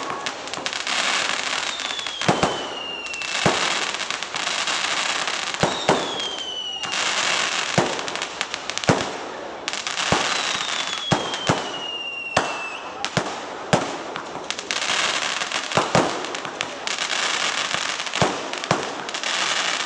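Fireworks display: repeated sharp bangs of shells bursting, with stretches of crackling hiss and three falling whistles, each about a second and a half long.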